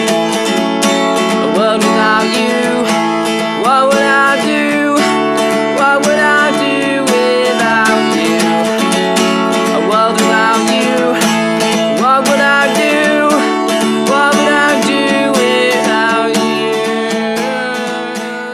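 Background song with acoustic guitar, fading out near the end.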